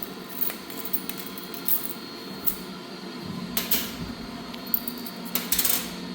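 Scattered clicks, knocks and handling noises at a coin-operated laundry dryer as the machine is got ready for use, over a steady faint hum.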